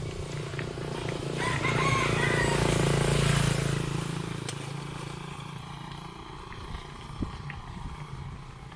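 A motor vehicle passing, its engine hum swelling to a peak about three seconds in and then fading, with a few short bird calls as it approaches.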